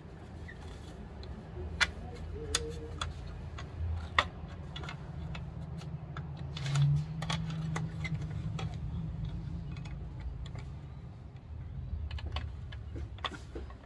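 Scattered clicks and taps of hands working the blade guard, arbor lock pin and bolt of a Ryobi miter saw while a new blade is tightened, with a low steady hum beneath.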